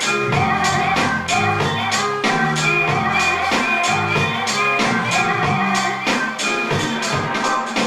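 Electronic dance music with a steady percussive beat and sustained synthesizer and keyboard notes.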